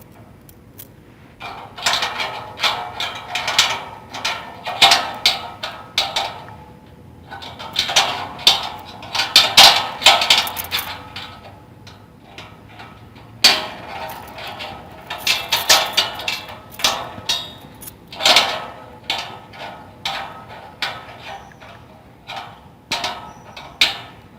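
Metal padlock being worked open and shut: bursts of rattling, clicking metal from the shackle and body, a few seconds each with short pauses between, and several sharp snaps along the way.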